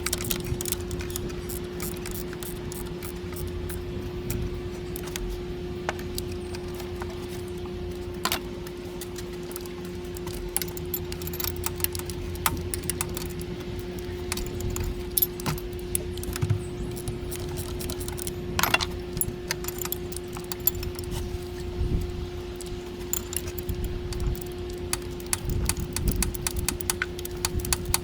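Irregular metallic clicks and clinks of metal tools and parts being handled, with a few sharper knocks, over a steady hum.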